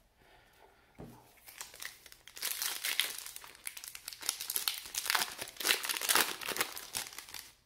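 A baseball card pack's foil wrapper being torn open and crinkled by hand. A dense crackling rustle starts about a second in.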